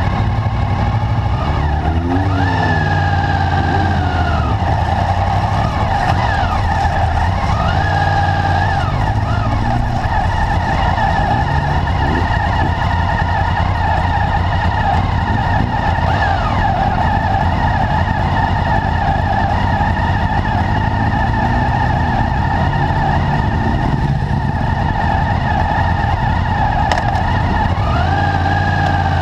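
Motorcycle engines idling close by with a steady hum, while riders blip their throttles in quick revs that rise and fall in pitch, about two seconds in, a few times around seven to nine seconds, and again near the end.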